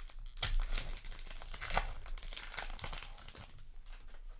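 Trading card booster pack wrapper being torn open and crinkled by hand, a dense run of crackles and rips that thins out near the end.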